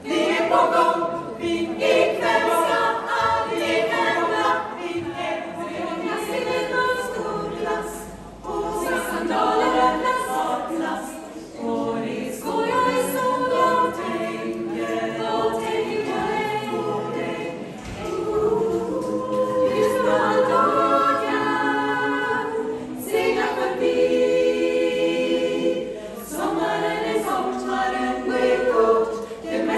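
Women's show chorus singing a cappella: a dozen voices in sustained chords, phrase after phrase with brief breaths between.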